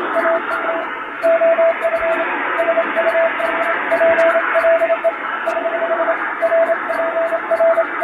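Simulated shortwave Morse code (CW): a single keyed tone of about 650 Hz sending English plain-language telegram text in dots and dashes over a bed of radio static, with fading added. The sending includes the error signal, a run of eight dots, after which the word is sent again.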